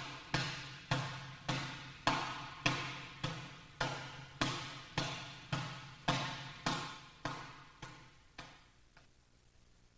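Open-hand Iron Palm strikes on a training bag set on a stack of concrete blocks. It is a steady run of sharp slaps, a little under two a second, each with a ringing tail, fading out near the end.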